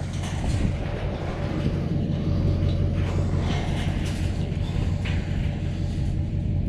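Engine idling steadily, a constant low hum, with a few faint knocks over it.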